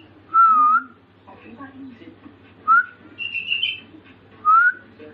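Sooty-headed bulbul (kutilang) giving a short broken chirping phrase, among loud clear whistled notes: a wavy dipping-and-rising whistle about half a second in, then two short upward-slurred whistles near three and four and a half seconds.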